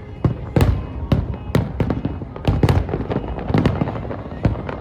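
Aerial fireworks bursting: an irregular run of about ten sharp bangs, each trailing a short echo.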